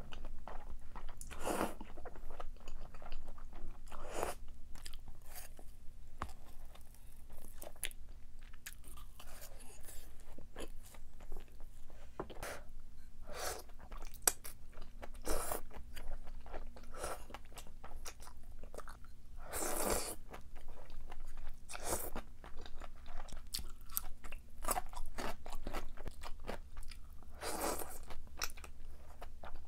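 A person eating close to the microphone: irregular crunchy bites and chewing, with a handful of louder crunches scattered through.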